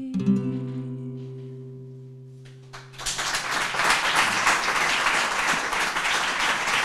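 Final chord strummed on a classical guitar, left to ring and fade for nearly three seconds; then an audience starts applauding and keeps clapping.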